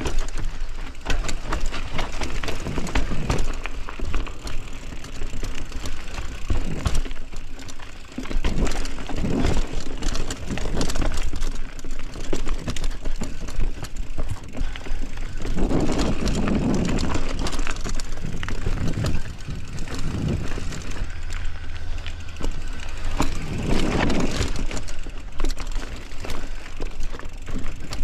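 Bicycle in motion: a steady rumble of riding noise with many sharp rattles and clicks, swelling louder a few times.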